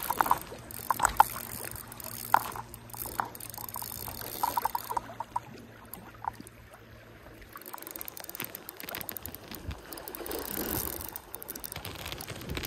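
Stream water sloshing and splashing at the surface while a hooked king salmon fights close to the bank, with scattered sharp clicks and knocks from the spinning reel and rod being handled. A steady low hum runs under it and stops about halfway through.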